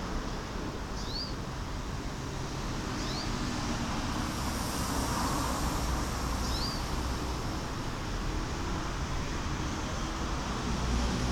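Steady traffic rumble, with four short rising chirps from small birds spaced a few seconds apart.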